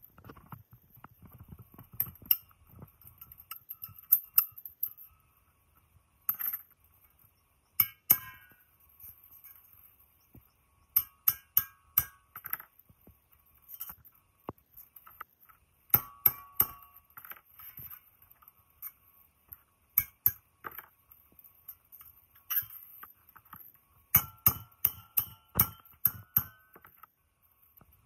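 Metal tools working at a rusty steel gas cylinder's valve guard: sharp metallic clinks and taps in uneven bursts, as the guard is pried and knocked loose.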